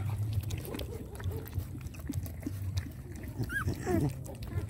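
Puppy eating rice out of a shallow basin of water, with irregular wet smacking and slurping. A short high squeal, rising and falling, comes about three and a half seconds in.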